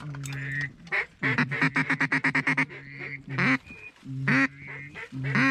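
Mallard-style duck quacking: a quick run of about a dozen short quacks, then a few longer drawn-out quacks about a second apart.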